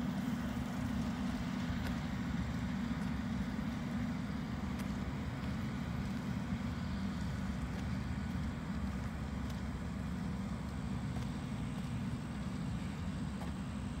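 A steady low rumble with no distinct events.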